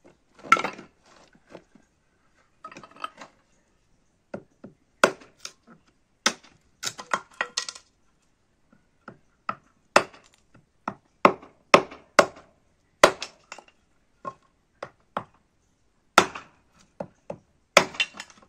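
Hatchet chopping and splitting fatwood kindling on a wooden chopping block: sharp, irregular chops and knocks, some coming in quick pairs.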